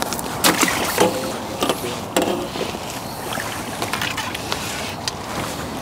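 Water splashing as hooked fish thrash at the surface and are brought to the landing net, with several sharp splashes in the first couple of seconds.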